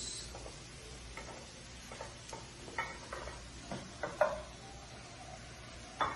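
A wooden spoon stirs sliced mushrooms in a pot, with scattered light knocks and scrapes against the pot. Near the end comes a slightly louder clatter as a plate is set down.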